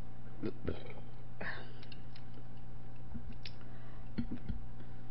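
Eating sounds: a few soft chewing and mouth noises and light clicks of metal chopsticks, scattered over a steady electrical hum.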